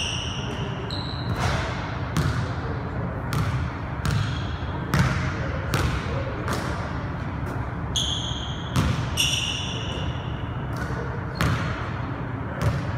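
Basketball bouncing on a hardwood gym floor, a dozen or so irregular thumps that echo in the hall. A few short high-pitched squeaks, at the start and around eight and nine seconds in, are sneakers on the hardwood.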